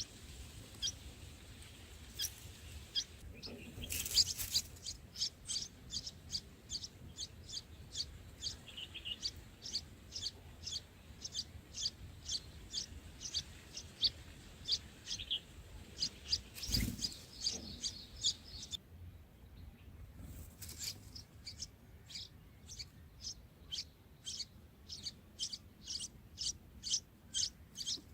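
Bulbuls chirping in a long series of short, high-pitched calls, at first about one a second and then quickening to about two a second. There are two brief rustling knocks, about four seconds in and again past the middle.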